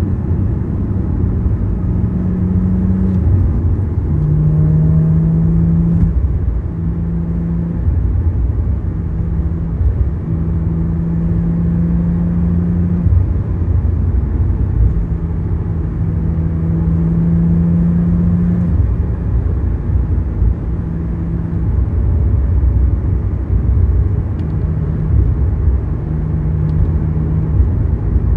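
Porsche flat-six engine running under steady cruise with road and tyre rumble, heard from inside the cabin. The engine note drops in pitch once about four seconds in, then holds fairly level.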